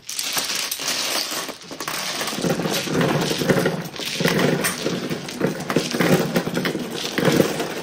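Mahjong tiles clattering loudly, a dense run of clicking that starts suddenly, with heavier clacks pulsing at a steady rhythm about every three quarters of a second after a couple of seconds.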